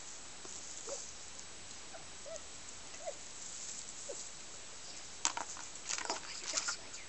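A plastic puppy disc and a puppy's paws clattering and crunching on gravel: a cluster of sharp clicks and scrapes starting about five seconds in. Before that, a few faint short squeaks.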